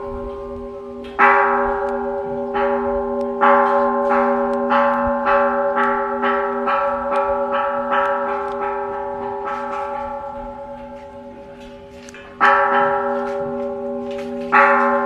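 A Buddhist bowl bell (standing brass bell) is struck again and again. Its ringing tone carries on between strikes. A run of quicker, lighter strikes in the middle fades away, and two heavy strikes come near the end.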